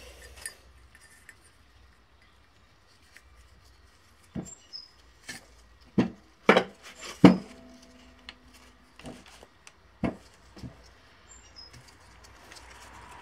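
Scattered small clicks and knocks of a new water pump being handled and turned over while its rubber O-ring gasket is fitted, the loudest knock about seven seconds in.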